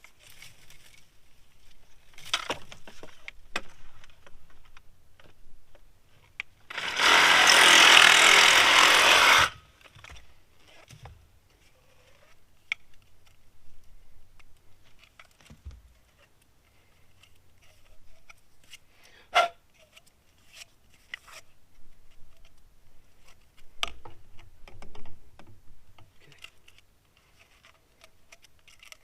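A power saw runs steadily for about three seconds, cutting a length of water pipe, with scattered clicks and knocks before and after.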